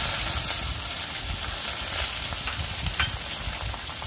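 Shallots and green chillies frying in hot oil in an aluminium kadai: a steady sizzle, with a light click about three seconds in.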